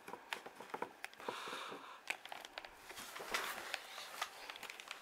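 Faint handling of a cardboard model box and its plastic packaging: scattered light taps, scrapes and crinkling as the box is opened and its contents drawn out.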